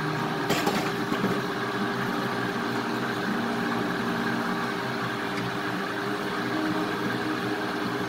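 High-powered countertop blender's motor running steadily at speed, churning a thin batter in its jar.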